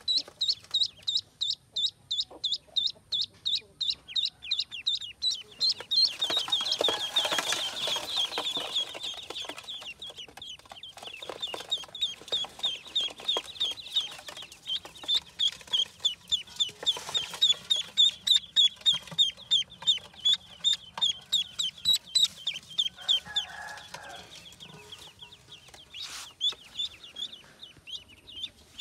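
Ducklings peeping: a steady run of short, high-pitched peeps, several a second, thickening into a denser chorus of many birds with some rustling a few seconds in.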